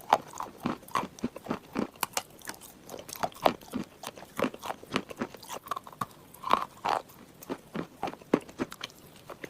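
Close-miked chewing and crunching of clay chunks: many quick, irregular crackles, several a second, mixed with softer wet chewing sounds.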